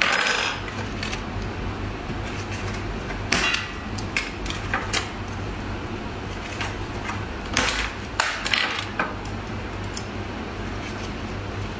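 Steel combination pliers being worked, giving about ten sharp metallic clicks and snaps at irregular intervals over a steady low hum.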